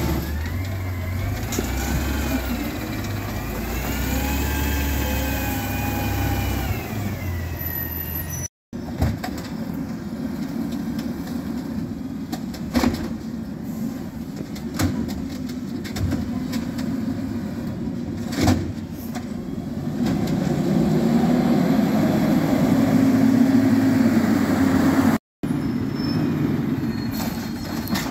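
Automated side-loader garbage trucks running. First, one truck's engine rumbles with a whine that rises and falls in pitch. After a cut, another truck approaches, its engine growing louder, with scattered clicks.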